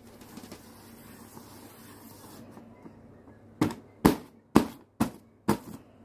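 A tool's tip jabbed through a printed paper sheet: five sharp knocks about two a second, starting a little past halfway, tearing holes in the paper.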